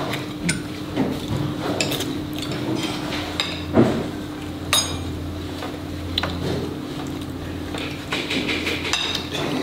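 Metal cutlery clinking and scraping on ceramic plates as pancakes are cut and eaten: several sharp, ringing clinks at irregular intervals, over a steady low hum.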